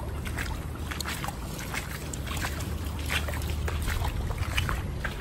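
Footsteps wading through ankle-deep floodwater: irregular small splashes and sloshing, with a low steady rumble underneath.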